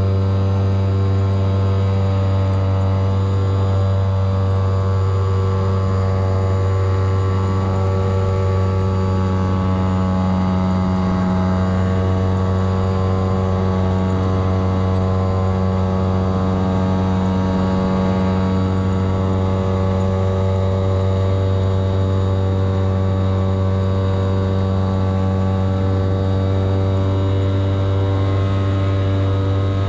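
Engine and propeller of a radio-controlled model tow plane running steadily under load while towing a model glider aloft, heard close up from on board the model.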